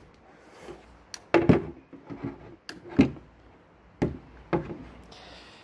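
Handling knocks: about half a dozen sharp clunks and taps as a cordless hedge trimmer is moved about on a stone slab, the loudest about a second and a half in and at three seconds.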